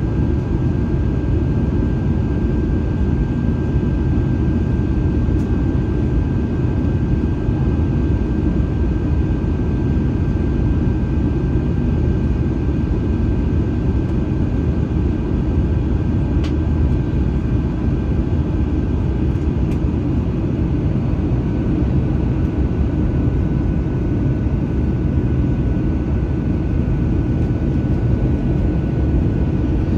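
Steady cabin noise inside an Airbus A321-231 on its descent: engines and airflow over the fuselage make an even, low roar, with a faint high steady whine above it.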